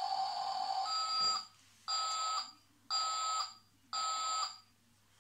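Electronic siren sound effect from a battery-powered toy fire truck: a steady electronic tone that breaks off about a second and a half in, followed by three half-second beeps about a second apart.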